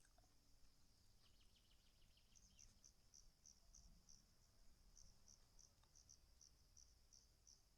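Faint cricket chirping in the forest: short, high chirps repeating evenly, about four a second from a couple of seconds in.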